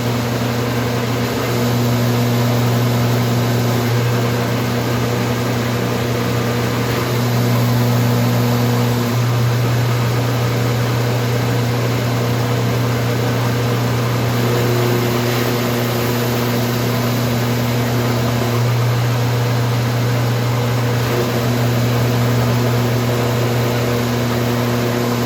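Electric power sander running steadily against wood, sanding the glued-in dowel pegs down flush with the board. The motor hum holds for the whole stretch and stops just after.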